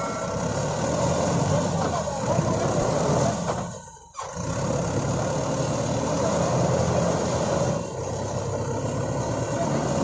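Mahindra 585 DI tractor's diesel engine running steadily as the tractor tries to drive out of deep mud, its rear wheel spinning. The sound drops out briefly about four seconds in, then carries on as before.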